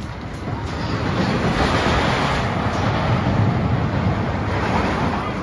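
Roller coaster train rolling along its steel track in a broad, noisy rumble that swells about a second in and stays loud.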